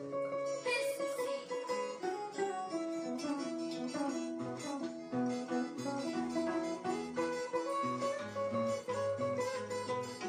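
Harp and twelve-string guitar playing an instrumental passage together, plucked melody notes over a moving bass line, with no singing.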